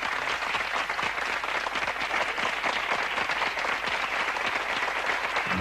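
Audience applauding: a steady clatter of many hands clapping.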